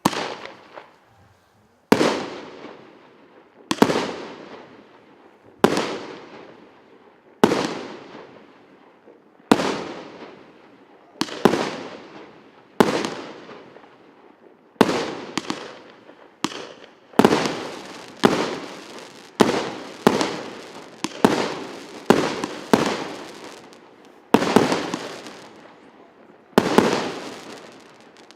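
Firework battery cake (РС837) firing shot after shot, about two dozen sharp bangs, each followed by a fading crackling tail. The shots come about every two seconds at first, then quicken to roughly one a second after about ten seconds.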